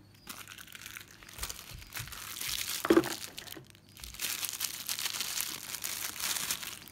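Plastic packaging of a pocket knife crinkling and rustling as it is handled and opened, with one sharp snap about three seconds in.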